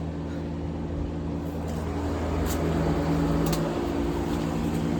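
Steady low hum of running machinery, a motor or engine holding a constant pitch, with a few faint clicks over it.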